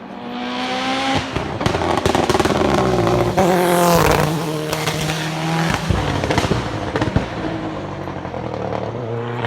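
Race car accelerating hard past at full throttle, its engine rising in pitch, loudest about two to four seconds in, with several sharp cracks. The pitch then drops and the engine fades as the car pulls away.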